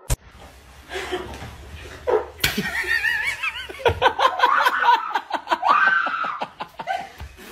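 A sharp smack about two and a half seconds in, then people laughing in quick repeated bursts through the rest.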